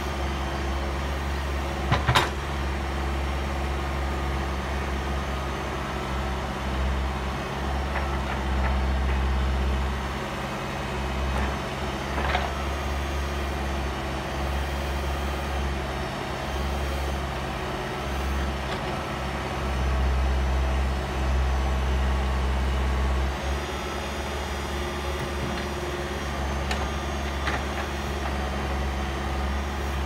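Backhoe loader's diesel engine running steadily, its speed rising and falling as the backhoe arm digs and shifts soil. Two sharp knocks, one about two seconds in and another near the middle.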